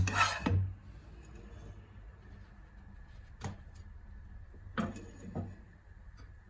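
Light clicks and knocks of kitchen utensils and dishes: a quick cluster at the start, then single sharp taps about halfway and near the end, over a faint steady hum.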